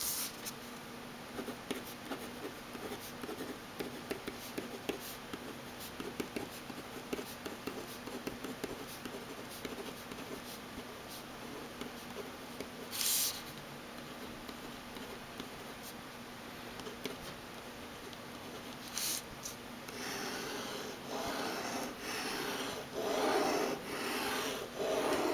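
Uni-Ball Vision RT 0.6 mm rollerball pen writing on a sheet of paper: faint, irregular little scratches as letters are printed, then, near the end, four or five longer, louder sweeping strokes as lines are drawn back and forth across the page.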